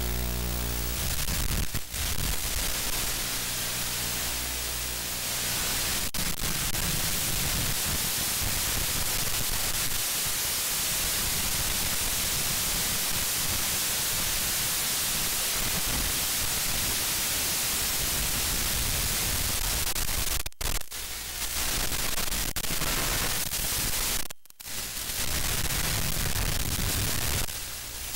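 Steady static hiss from a 5.8 GHz analog FPV video receiver's audio channel. It breaks off briefly twice in the last third.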